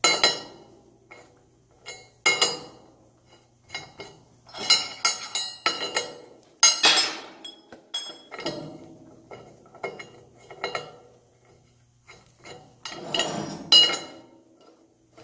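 Steel hand screws, bolts with round-bar T-handles, clinking and clanking against a steel baseplate and welding table as they are handled and screwed into nuts welded on the back of the plate. A string of separate metal knocks and clinks that ring briefly, loudest around the middle and near the end, over a faint steady low hum.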